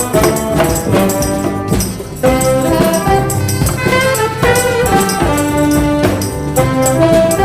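Ensemble music with brass and a steady beat, the notes changing every half second or so.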